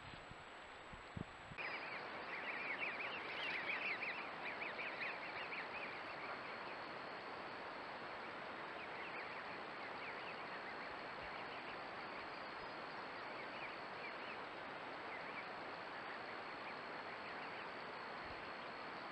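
Canada goose goslings peeping: many rapid, high chirps come in thick from about a second and a half in for several seconds, then in scattered bursts. Under them runs the steady hiss of a trail camera's microphone.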